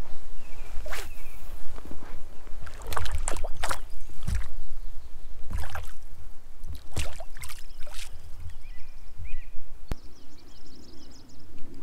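Lake water lapping and slapping against a small inflatable boat, under a steady low wind rumble on the microphone. A few faint high chirps come in near the end.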